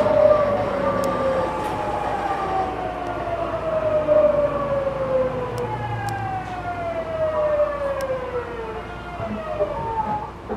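Tokyu 9000 series electric train's GTO VVVF inverter and traction motors whining, heard inside the carriage: several tones fall slowly in pitch, jump back up about halfway through, and fall again as the train slows.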